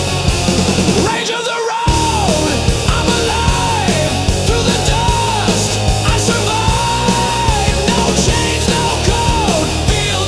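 Heavy rock music with distorted guitars and drums. The bass and drums drop out briefly about a second in. A lead line repeats a phrase that holds and then falls at its end.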